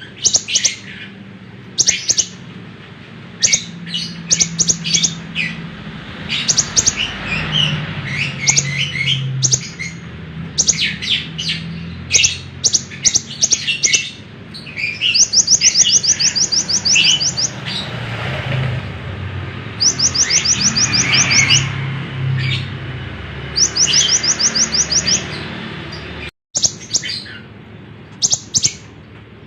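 Konin (kolibri ninja) sunbird singing vigorously: strings of sharp, high chirps, broken three times by fast rattling trills of many rapid notes.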